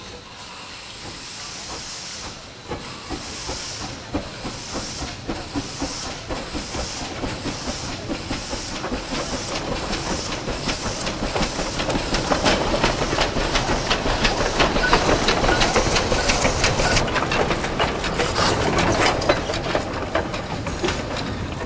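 C2 class 0-8-0 narrow-gauge steam locomotive working along the track with steady, hissing exhaust chuffs. It grows louder as it approaches and passes close by, with metallic clanking and clicking from the running gear and rails in the second half.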